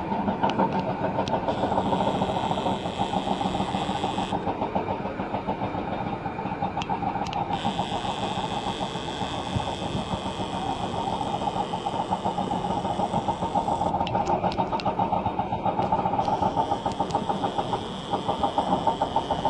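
Heavy diesel engine of construction machinery running steadily, with a fast, even pulse.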